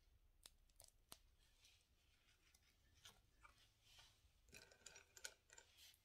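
Near silence, with a few faint clicks and soft rustles of handling, like a plastic piping bag or the camera being moved.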